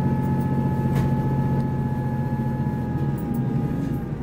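Diesel passenger train running, heard from on board: a steady low engine drone with a high whine over it, the engine note dropping about three seconds in.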